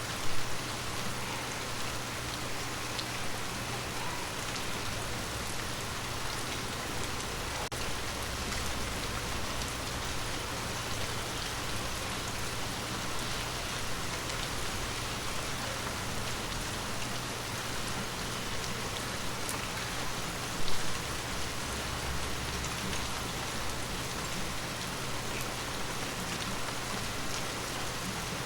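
Steady rain falling on forest leaves, an even pattering hiss. Two brief louder low bumps stand out, one right at the start and one about three quarters of the way through.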